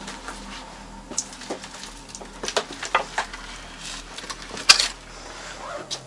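Footsteps on old, rotting wooden floorboards and scattered debris: irregular knocks and crunches, with one sharp crack about three-quarters of the way through.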